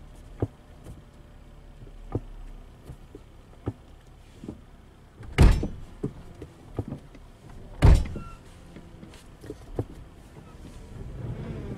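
The manual gear lever of a BMW E90 being handled: light clicks and knocks, with two loud clunks about five and a half and eight seconds in.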